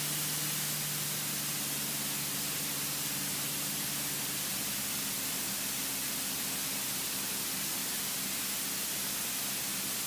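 Steady hiss of a light aircraft's intercom audio feed, with a faint, even engine drone beneath it.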